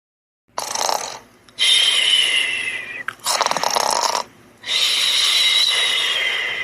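A cartoon character snoring loudly in an exaggerated way: rattling snore inhales alternate with long whistling exhales that slide down in pitch, about two full snore cycles.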